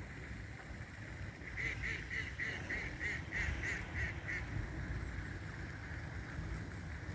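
A bird calling: a quick, even series of about ten notes lasting about three seconds, starting about a second and a half in, over a steady low rumble.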